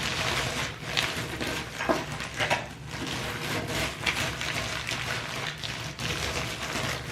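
Cinnamon Toast Crunch cereal crunching and crackling inside a plastic zip-lock bag as a rolling pin is rolled over it, a continuous run of small, irregular crackles.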